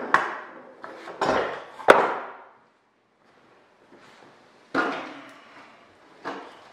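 Wooden knocks and clatter as a wooden stand is handled and set down on a concrete floor: two sharp knocks in the first two seconds, then after a short pause a few duller thumps.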